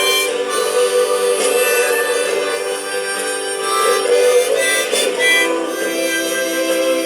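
Accordion (gaita) playing a melody in sustained, reedy notes that shift every second or so.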